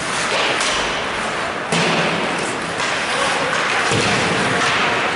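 Ice hockey play on an indoor rink: several sharp knocks of puck and sticks against the ice and boards over a steady hiss, the loudest a little under two seconds in.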